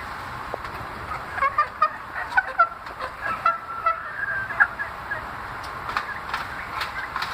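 Chicks in a cage giving a rapid string of short, pitched calls, starting about a second in and carrying on densely, over a steady background hiss.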